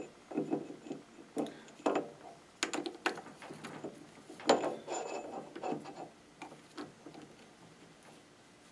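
Steel tool shank sliding in and out of the jaws of an old Logan three-jaw lathe chuck: irregular metal-on-metal scrapes and knocks, loudest in the first half.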